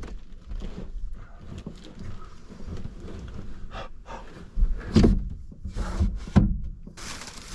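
Handling noises in a small enclosed space: rustling and knocks, with heavier thumps about five seconds in and again about a second and a half later. A steady hiss starts abruptly near the end.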